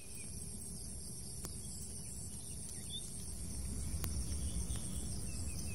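Forest insects shrilling steadily in a high, even band, over a low rumble, with two faint ticks about a second and a half and four seconds in.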